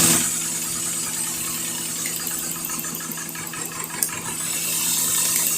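Car engine idling steadily while its ignition coils are checked one at a time by ear, with a single sharp click about four seconds in.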